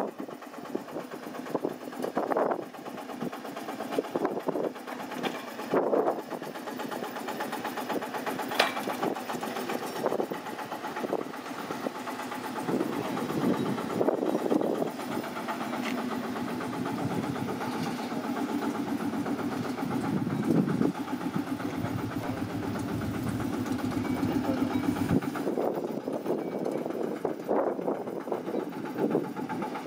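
An engine running, with a steadier low hum through the middle stretch and a few sharp clicks.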